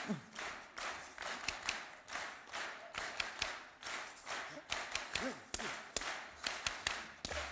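A large audience clapping and tapping a repeated rhythm together, the strokes coming steadily several times a second.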